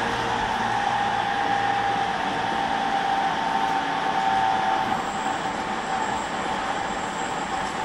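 JR East E231 series electric train running, heard from on board: steady rolling noise with a steady whine under it.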